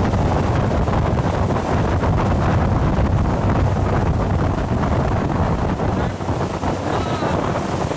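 Pershing 70 motor yacht at high speed: wind buffeting the microphone over the rush of the wake and spray, with a steady low drone from its twin engines underneath.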